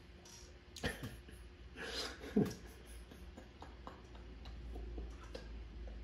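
Quiet, breathy laughter from a man, in a few short bursts about one and two seconds in, then fainter over a low steady hum.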